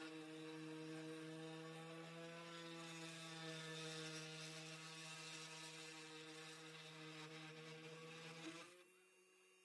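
CNC 3018 router's small spindle motor running while its bit engraves a wooden board: a steady whine whose pitch wavers slightly. It dips away briefly near the end.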